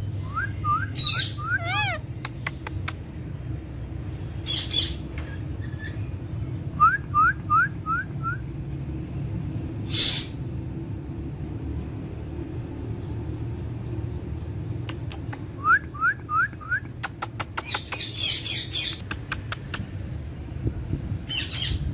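Pet ringneck parrot whistling runs of four or five short rising notes, three times, with short squawks and sharp clicks between, over a steady low hum.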